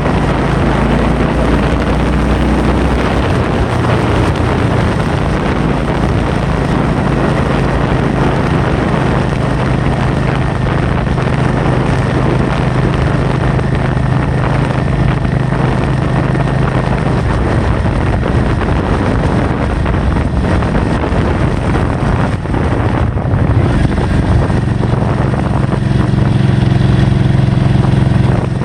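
Wind rushing over the microphone with a vehicle engine running underneath as a steady low hum that changes pitch a couple of times.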